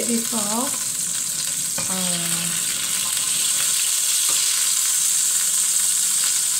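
A beef patty sizzling in a frying pan over a gas flame: a steady high hiss that grows a little louder about halfway through.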